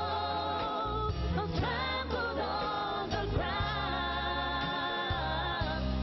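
A group of male singers sings a slow worship song over instrumental backing with a steady bass line. The words are 'Crucified, laid behind a stone', then 'You lived to die, rejected and alone'.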